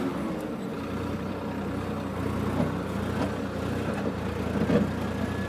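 Tractor's diesel engine running steadily under load while pulling a reversible plough through the soil, with a few knocks from the implement, the loudest near the end.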